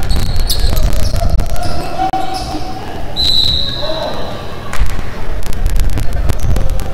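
Basketball game on a hardwood gym court: the ball bounces and thuds repeatedly, with a burst of impacts in the second half. A referee's whistle blows once, briefly, a little before the middle, and play stops.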